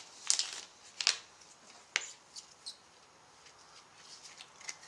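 A trading card pack's wrapper being torn open and the cards handled: a few short crackles and snaps, the loudest about half a second and a second in and again near two seconds, then fainter rustles.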